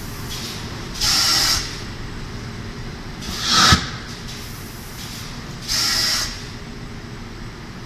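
Paper pulp egg tray moulding machine running through its forming cycle: short hisses of air come every two and a half seconds or so over a steady machine hum. They alternate between a flat half-second hiss and a swelling hiss that ends in a sharp knock.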